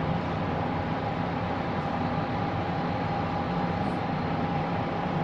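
Steady background hum and hiss of machine-like room noise, with a faint constant whine on top.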